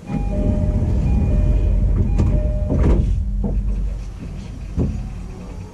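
E233-series commuter train's doors opening at a station stop. The door chime sounds twice over the clunk of the door mechanism, and platform noise comes into the car all at once.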